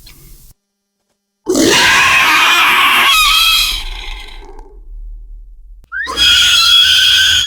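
Velociraptor creature sound effect: a loud screeching call of about two seconds that trails off into a rough, fading rattle, then after a pause a second, shorter screech that opens with a rising glide and cuts off sharply.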